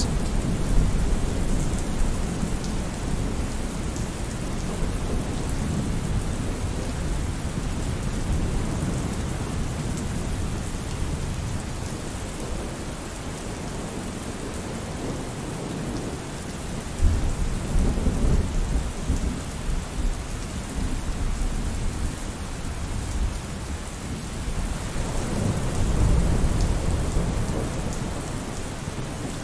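Steady rain hissing, with deep rolls of thunder: one starts suddenly about 17 seconds in and another comes around 26 seconds.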